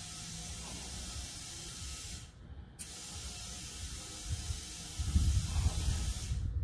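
Compressed air hissing steadily through an air chuck and valve stem into a flat tractor rear tire as it is inflated, cut off briefly a little over two seconds in and then resumed. Low rumbling and knocks come in over the last second and a half.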